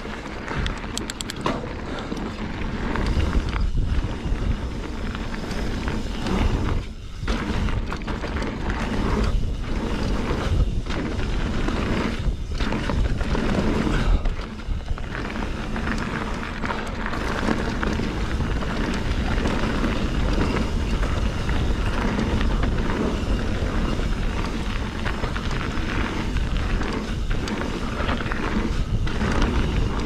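Wind rushing over the helmet camera's microphone and knobby mountain-bike tyres rolling on packed dirt during a downhill jump-line run, with a few thuds as the bike lands.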